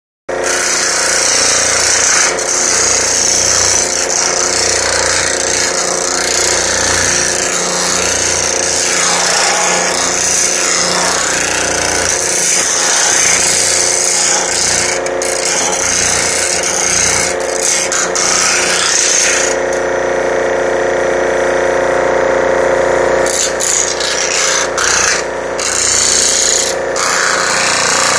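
Pullmax-style reciprocating forming machine running on its short stroke, its dies hammering rapidly on a sheet-metal fender as it is worked through them. The tone changes about two-thirds of the way through.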